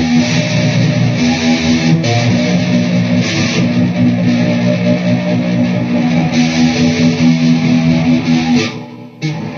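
Electric guitar played through a Peavey VYPYR X2 modeling amplifier: sustained chords ring steadily, then die away about nine seconds in, with one short chord struck just before the end.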